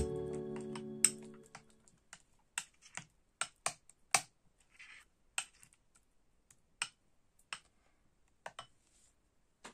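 A metal spoon clicking against a glass bowl as it stirs a thick paste, in irregular sharp taps. Background music fades out over the first second or so.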